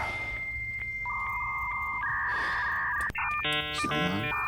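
Electronic beeping tones. A steady high tone is joined by a lower one about a second in, and the pitch steps about two seconds in. In the last second and a half comes a rapid run of shifting tones, like an alarm or a dialling sequence.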